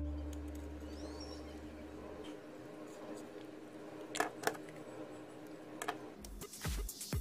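A few sharp clicks and taps of small hardware being handled, two close together about four seconds in and another near six seconds. Background music fades out at the start and a regular beat comes back in near the end.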